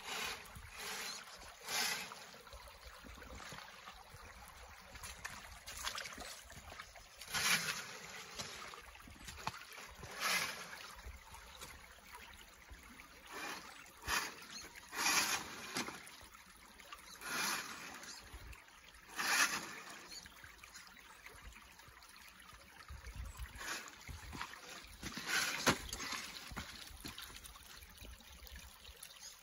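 A creek running steadily, with irregular short bursts of noise as a 2WD off-road RC car drives in spurts over loose creek-bed stones.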